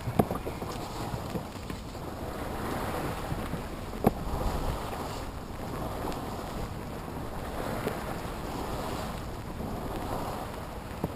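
Fresh breeze buffeting the microphone and water rushing along the hull of a 30-foot Dufour Arpege sailboat under way, the noise swelling and easing. Two brief knocks, one right at the start and a sharper one about four seconds in.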